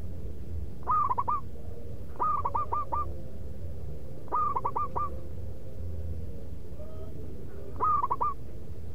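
Zebra dove (perkutut) cooing its loud, rhythmic song: four short phrases of quick, clipped notes, three to five notes each, repeated every two or three seconds. A steady low rumble runs underneath.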